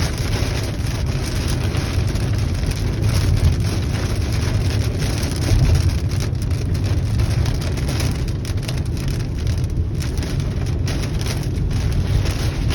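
Heavy rain falling steadily during a thunderstorm, a constant loud hiss over a low rumble.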